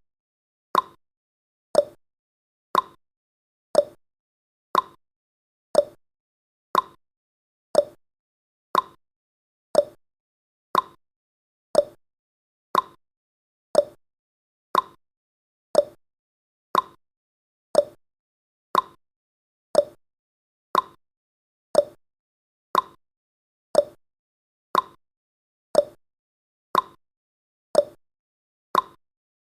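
Countdown timer's clock-tick sound effect: one short, sharp tick about every second, evenly spaced.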